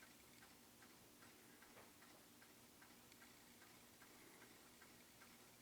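Faint, evenly spaced ticking, several ticks a second, over near-silent room tone with a faint steady hum.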